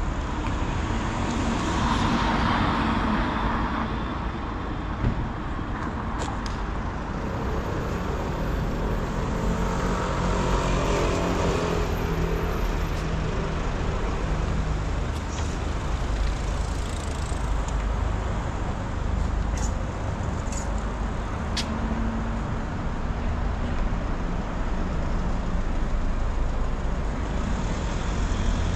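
City road traffic: cars and vans passing at steady speed on a wide street, with the engine of a passing vehicle swelling about ten seconds in.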